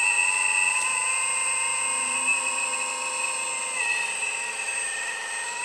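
Electric hydraulic pump of an Earth Digger 4200 XL RC excavator running with a steady high whine. Its pitch dips slightly a little under four seconds in.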